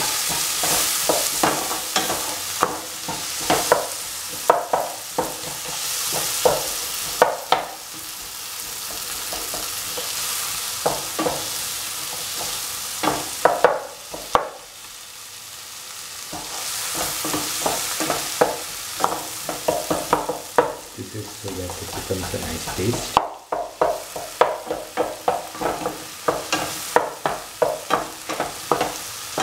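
Tomatoes and onions sizzling in oil in a frying pan while a spatula stirs and crushes them, with irregular scrapes and taps of the spatula against the pan. The taps thin out briefly in the middle and come thick and fast in the second half.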